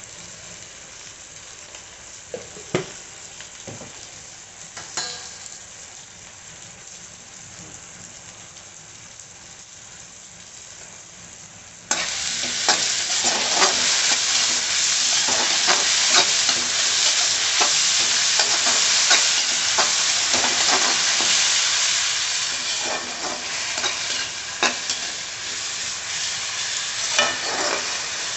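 Onion-tomato masala sizzling in a kadhai. A spatula stirs and scrapes it against the pan with many small clicks and knocks. About twelve seconds in, the sizzling abruptly becomes much louder.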